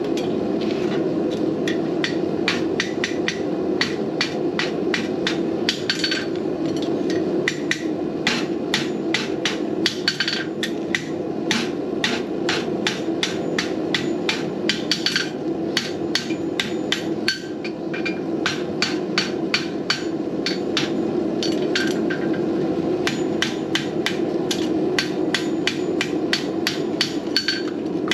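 Hand hammer striking a red-hot steel horseshoe on an anvil as the shoe is hot-shaped. The blows ring out in quick runs of about three a second, with brief pauses between runs, over a steady low hum.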